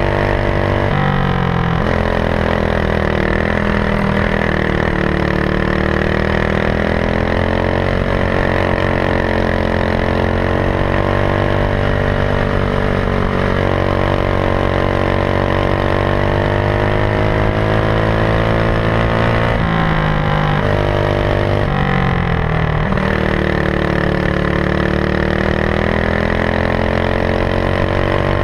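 Racing kart engine under power through a lap, its pitch dropping sharply as it slows for corners (about a second in, and twice around twenty seconds in) and climbing steadily again as it accelerates out.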